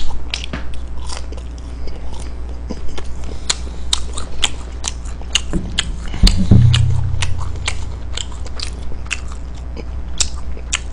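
Close-miked chewing and biting of a chicken McNugget: many sharp, crisp clicks and crunches, over a steady low hum. A thump with a brief low rumble about six seconds in is the loudest moment.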